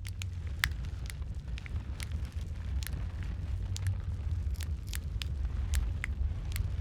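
Wood fire crackling in a fireplace: irregular sharp pops and snaps, several a second, over a steady low rumble of the burning.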